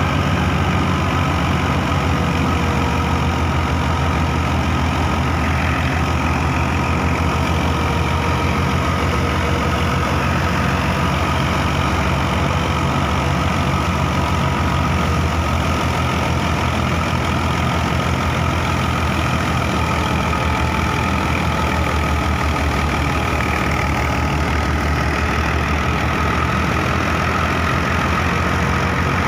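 Massey Ferguson 240 tractor's diesel engine running at a steady, unchanging speed, with a steady whine of driven machinery, likely the wheat thresher, sounding above the engine note.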